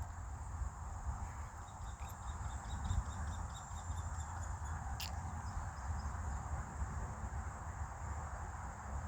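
Outdoor ambience: a low, uneven wind rumble on the microphone under a steady high insect buzz, with a short run of high chirps about two to four seconds in and a single sharp click about five seconds in.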